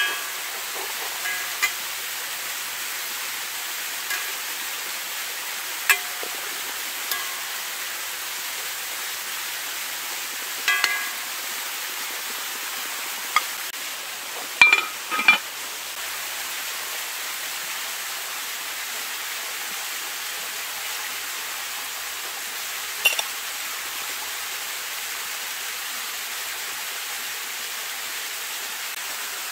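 Metal slotted skimmer clinking and scraping against a pan of frying potatoes and beef: scattered sharp clinks, the loudest two close together about halfway through, over a steady rushing hiss.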